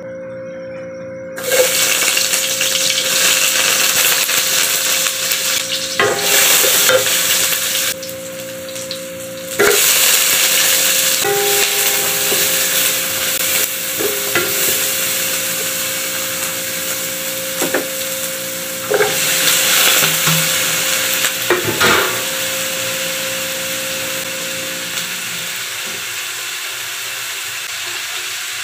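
Sliced onions and garlic sizzling in hot oil in a stainless steel honeycomb wok, starting suddenly about a second and a half in as they hit the oil, while a spatula stirs and scrapes against the pan. The sizzle drops briefly about a third of the way through, then picks up again.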